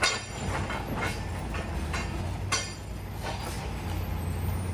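A medium-duty tow truck's engine runs steadily while it rear-tows a lifted forklift over railroad tracks. Irregular metallic clanks and rattles come from the towed forklift and tow gear as they bump over the rails, the loudest right at the start and about halfway through.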